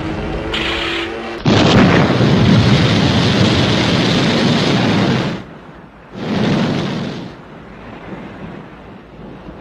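A loud rushing blast of noise, like a wartime explosion or launch, starts suddenly about one and a half seconds in, holds for about four seconds and cuts off. A second, shorter blast follows, then a lower rumble.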